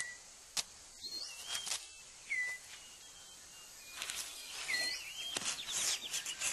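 Rainforest ambience with short whistled bird calls that swoop up and down, repeated several times. Sharp dry clicks and rustles of leaves and twigs come through it, and the sound gets busier in the second half.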